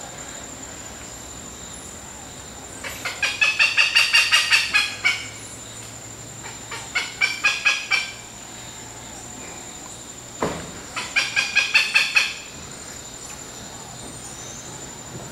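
A monkey calling in three bouts of rapid, repeated calls, about four or five a second, each bout lasting one to two seconds. A steady high-pitched tone runs underneath, and a single knock sounds just before the third bout.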